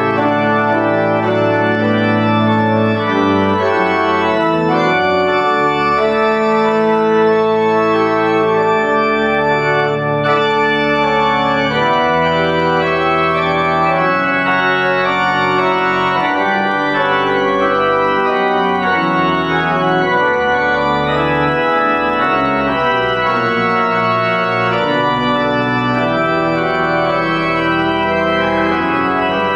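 Two-manual church pipe organ playing a polyphonic piece: held chords that change every second or so over low bass notes, at a full, steady volume.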